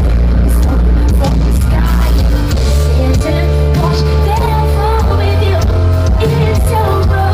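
Live concert performance: a female singer's voice over a band, with deep sustained bass notes under the singing.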